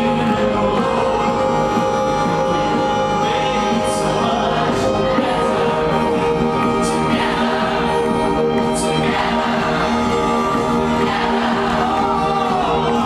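Live band music: sustained instrumental chords with violin and bass guitar, and a voice singing over it, with a few short cymbal-like hisses.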